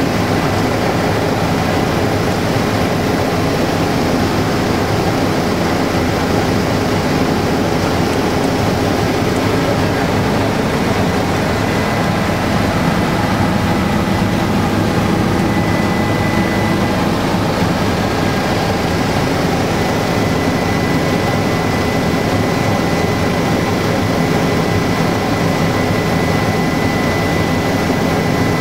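Helicopter engine and rotor noise heard from inside the cabin in flight: a loud, even drone with a thin, steady high whine over it.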